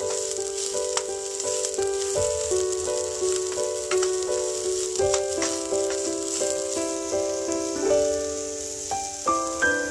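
Diced onions and green chillies sizzling as they fry in hot oil, heard under background music: a melody of short notes changing about twice a second, louder than the sizzle.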